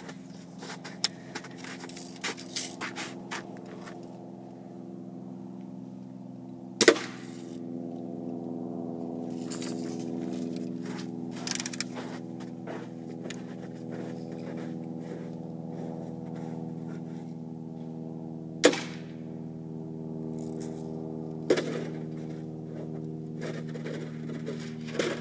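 BB gun shots: three sharp cracks several seconds apart, the first about seven seconds in and the other two close together near the end, with clicks and rattles of the gun being handled between them. A steady mechanical hum with pitched overtones runs underneath throughout.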